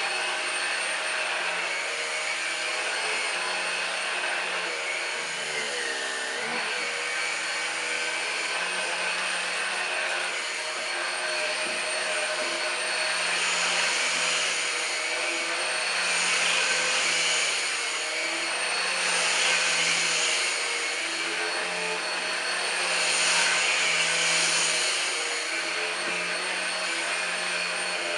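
Numatic Henry Quick HEN70 cordless stick vacuum running steadily with a motor whine. Its pitch dips briefly about six seconds in, and the sound swells louder several times in the second half.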